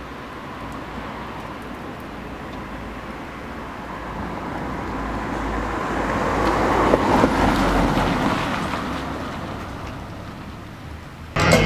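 A car passing by on the street: its tyre and engine noise swells to a peak about seven seconds in and fades away. Loud rock music cuts in suddenly just before the end.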